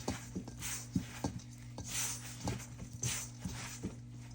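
Hands mixing sticky bread dough in a bowl: irregular soft squelches and light knocks against the bowl, over a steady low hum.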